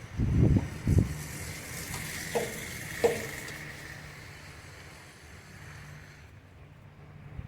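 Handling noise of an electrical harness connector being fitted by hand: two dull thumps in the first second, then two small sharp clicks about half a second apart, with a steady hiss in the background for several seconds.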